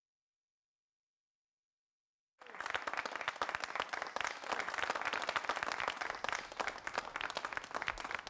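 Total silence, then an audience starts applauding about two and a half seconds in and keeps clapping steadily.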